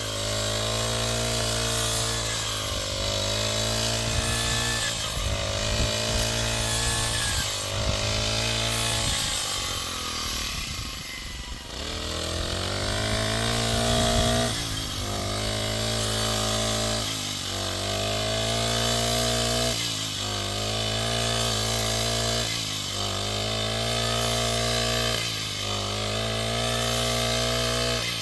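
Engine-driven machine running steadily, its pitch sagging and recovering every two to three seconds as if it is repeatedly put under load.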